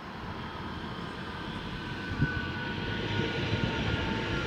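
DB class 442 Talent 2 electric multiple unit coming in along the track, growing steadily louder as it nears, with wheel rumble and a thin whine that falls slightly in pitch. A single knock about two seconds in.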